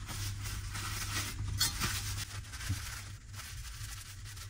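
Paper towel rustling and crinkling as it is folded by hand and rubbed over a bowl to wipe off cooking grease, over a low steady hum.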